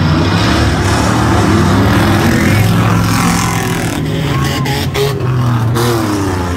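Engines of several pickup trucks racing together in an autocross heat, their overlapping engine notes loud and steady.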